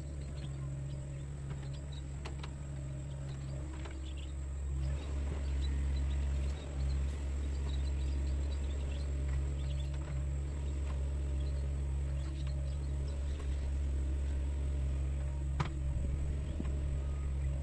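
Sunward mini excavator's diesel engine running steadily, picking up and getting louder about five seconds in as it works, with a few scattered knocks.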